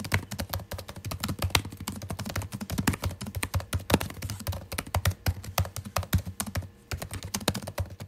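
Typing on a Huawei MateBook X Pro laptop's built-in keyboard: a rapid, continuous run of key clicks.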